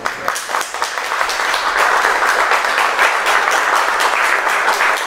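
Audience applauding, many hands clapping at once, getting louder about a second and a half in.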